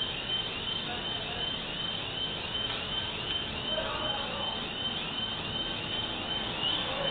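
A high-pitched chirp, rising and falling, repeating evenly about three times a second over a steady background hiss.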